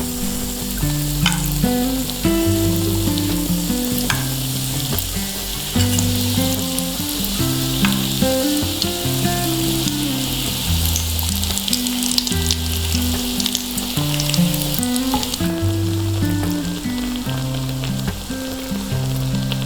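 Food sizzling as it fries in oil in a miniature pan, with a few light clicks. The sizzle grows denser a few seconds in and thins near the end. Soft background music of held low notes plays underneath.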